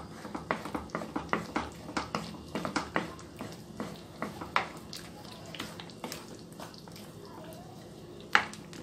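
Metal spoon clicking and scraping against a steel kadai as tomatoes are mashed and fried. Irregular taps come several a second at first, then thin out, with one loud knock near the end.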